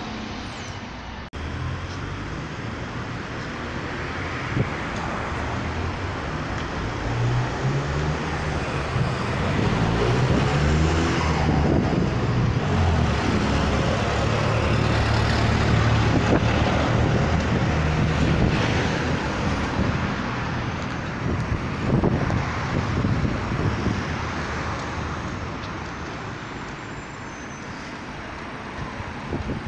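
A motor vehicle's engine running close by, growing louder to a peak midway and then fading away over about twenty seconds, its pitch shifting up and down as it moves.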